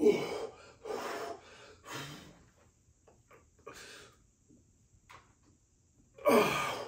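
A man's hard breathing and grunts of effort while pressing heavy dumbbells overhead: forceful exhales about a second apart, then fewer, and a longer, louder voiced grunt near the end.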